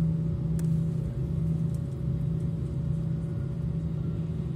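Airbus A340 cabin noise heard from a seat over the wing while taxiing: a steady rumble from the four jet engines at low thrust, with a constant low hum and a fainter higher tone running under it.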